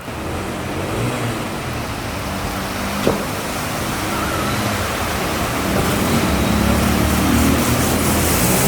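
Motor vehicle engines running with shifting pitch over a steady wash of water noise, and a sharp click about three seconds in.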